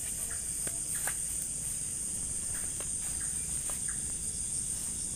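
Night-time crickets trilling in a steady high-pitched chorus, with a few faint scattered ticks.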